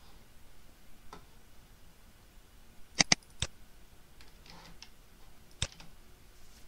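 Scattered computer mouse and keyboard clicks: three sharp clicks in quick succession about three seconds in, a few faint ones after, and one more sharp click near the end.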